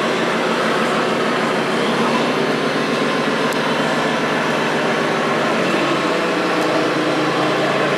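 Electronic engine-sound modules on several radio-controlled scale trucks, playing simulated diesel engine notes together in a steady mix.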